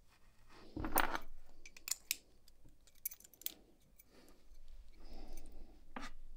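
Small brass lock pins and an American Lock 1100 padlock's brass plug handled between fingertips: light metallic clicks and ticks as the pins are set into the plug's pin chambers, with a louder handling rub about a second in.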